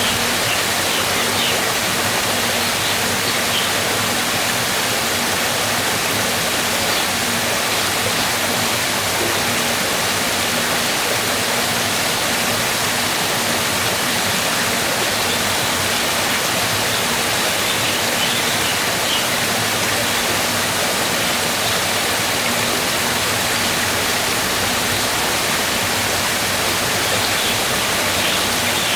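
Waterfall: water pouring and splashing steadily, with a few faint high chirps now and then.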